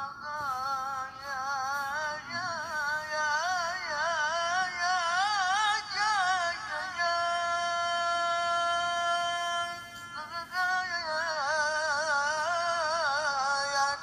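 A Quran reciter's high male voice through a microphone and PA, singing an ornamented line of rapid wavering turns. About seven seconds in he holds one steady high note for about three seconds, then goes back to the ornaments. This is qari vocal and breath training in the style of Quranic recitation.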